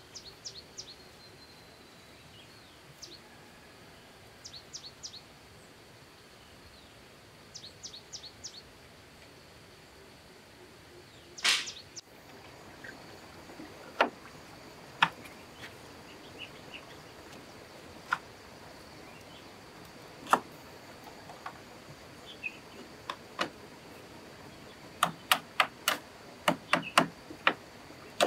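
Scattered sharp knocks and clicks, with one louder crash about eleven seconds in and a quick run of knocks near the end, over faint bird chirps and a faint steady high tone.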